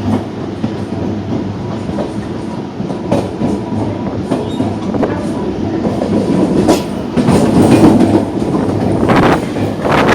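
Mumbai AC 4xxx-series EMU train running, heard from inside its motor coach: a steady running hum with the wheels clicking over rail joints, growing louder about seven seconds in.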